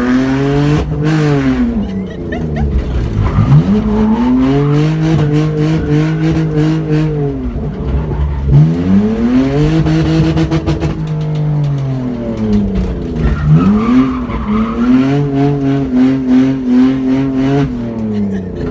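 BMW E46 drift car's engine held at high revs through donuts, with the revs climbing, holding and dipping three times, and the rear tyres squealing as they spin.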